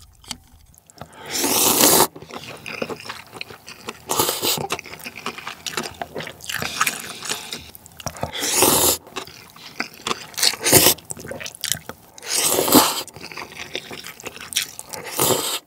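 Cold naengmyeon noodles in broth being slurped up with chopsticks, in about six long wet slurps spaced a couple of seconds apart, with chewing in between.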